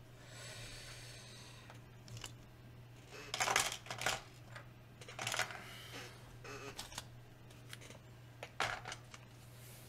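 Quiet handling sounds on a desk: paper rustles and light plastic clicks and taps as a Lego instruction booklet and model are handled, loudest about three and a half seconds in. A faint steady low hum runs underneath.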